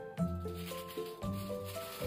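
Background music: a light instrumental tune of short, stepped notes over a bass line.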